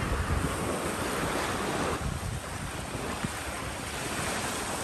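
Wind buffeting the microphone over the steady wash of the sea, with low gusty rumbles; the sound thins a little about two seconds in.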